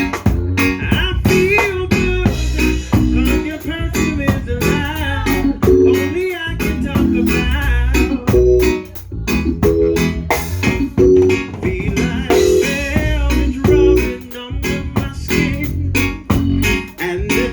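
Live band playing at a sound check: guitar over bass guitar and drum kit, with a steady beat.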